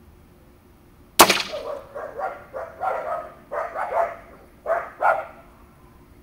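A single sharp crack from an AirForce Condor PCP air rifle about a second in, as the pellet knocks over the stacked cans of water. Then a dog barks about ten times in quick bursts over the next three seconds.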